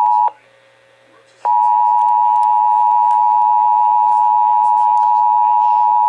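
Emergency Alert System attention signal, a loud steady two-tone alarm tone, relayed by an EAS decoder receiving a tornado warning. It breaks off just after the start for about a second of faint quiet, then resumes and holds steady.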